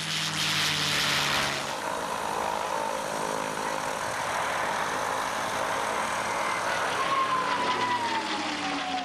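P-51 Mustang's supercharged Packard-built Rolls-Royce Merlin V12 running at high power as the fighter takes off and flies overhead, a steady propeller-engine drone. The engine note falls in pitch about seven seconds in.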